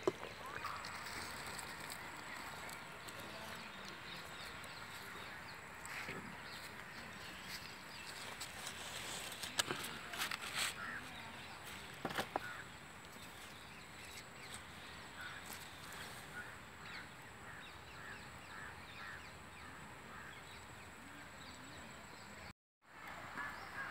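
Birds calling, with a few brief knocks.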